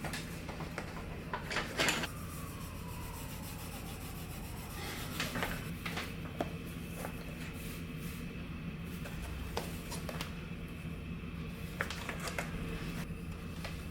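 Scattered light knocks, clicks and clatters of household handling, cupboard- or drawer-like, over a steady low hum. A short falling tone follows the loudest knock about two seconds in.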